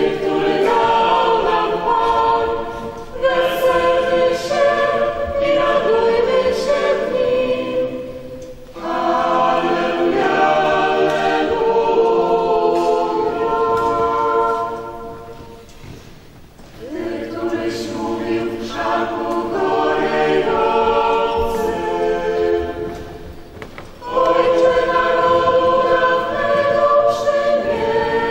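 Group of voices singing a church hymn together in long phrases, each about eight seconds, with brief breaks between them.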